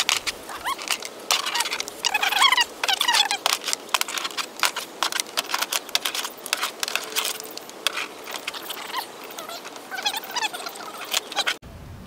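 Irregular clicking and rattling from hands working the MotorGuide Xi5 trolling motor's coiled curly cable and plastic parts as the cable is stretched out, with birds chirping in the background. The sound changes abruptly near the end.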